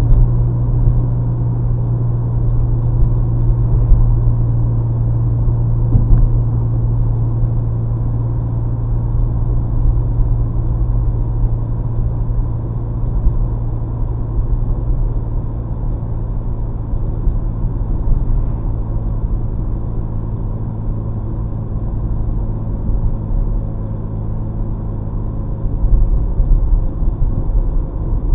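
Cabin drone of a 2005 Chevrolet Cobalt with a custom exhaust cruising at a steady speed: a steady low hum over tyre and road rumble, heard from inside the car. Near the end the rumble turns rougher and more uneven.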